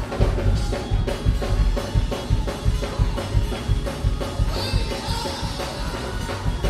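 Live church band music driven by a drum kit: a steady, fast beat with a heavy bass drum, about three hits a second.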